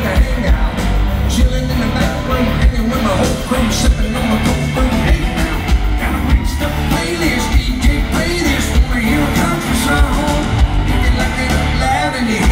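Live country-rock band playing loudly through a concert sound system with a steady drum beat, a male lead singer singing over it.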